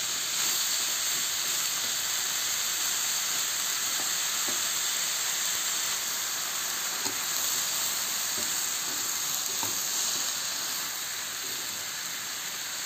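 Long beans, tempe and dried anchovies sizzling steadily as they stir-fry in a metal wok, with a few light scrapes and taps of a metal spatula against the pan.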